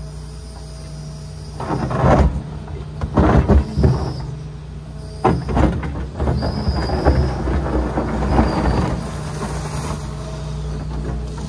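John Deere 245 excavator's diesel engine running steadily while its bucket scrapes and digs through gravelly soil, with a run of loud scraping and clattering from about two seconds in until about nine seconds in.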